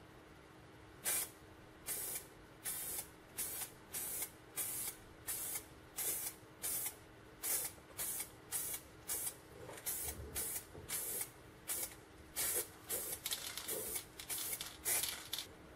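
Aerosol spray-paint can sprayed in a rapid run of short hissing bursts, roughly one or two a second, starting about a second in, as a coat of paint goes onto the inside of a steel helmet shell.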